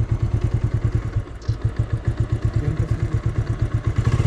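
A small vehicle engine idling close by, with an even low chugging pulse of about ten beats a second. It dips briefly about one and a half seconds in.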